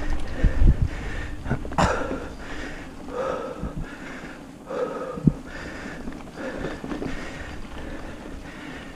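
A mountain biker breathing hard in a steady rhythm while riding dirt singletrack. The bike thumps over bumps in the first second, with a sharp click a little under two seconds in and a knock about five seconds in.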